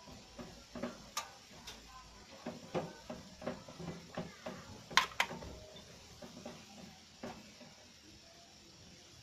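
Hands working inside a steel computer case, handling the motherboard's power cables and connectors: irregular clicks and taps of plastic and metal, the loudest a pair of sharp clicks about five seconds in.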